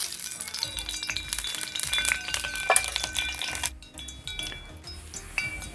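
Spoonful of cooking oil crackling and sizzling in a hot iron pan over a wood fire, thinning out about two thirds of the way through, under background music with bell-like notes.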